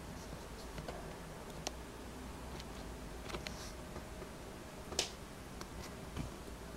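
Camera handling noise: scattered small clicks and ticks over a faint steady hiss, the sharpest click about five seconds in.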